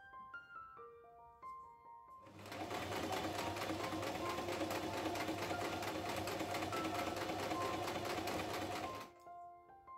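Electric domestic sewing machine stitching a seam through cotton fabric. It starts about two seconds in, runs steadily for about seven seconds and stops near the end. Soft piano music plays before it starts and after it stops.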